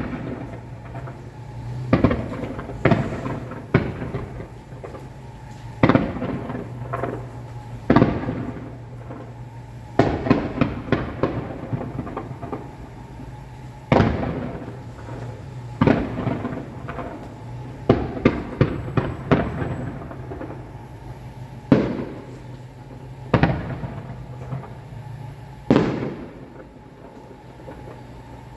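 Fireworks going off: sharp bangs about every two seconds, each trailing off, with bursts of rapid crackling in a few places, most plainly around ten seconds in and again around eighteen to twenty seconds in.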